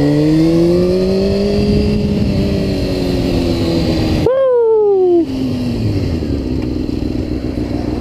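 Honda CBR600RR inline-four engine accelerating, its pitch rising through the first couple of seconds, then holding and slowly easing off. About four seconds in, a brief, sharp falling whine cuts in for about a second before the lower engine tone returns.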